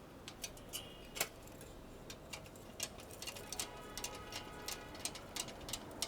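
Scattered light metallic clicks and taps, irregularly spaced, from bicycle brake parts and tools being handled while the brake cable is fitted.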